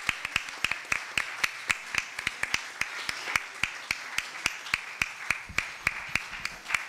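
Small audience clapping by hand: sharp, uneven claps, several a second.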